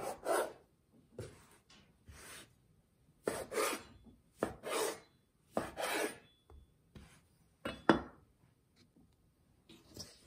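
Chef's knife cutting floured lavash dough into pieces on a wooden cutting board: a run of short scraping strokes as the blade passes through the dough and drags across the board, with a sharp knock of the blade on the wood near the end.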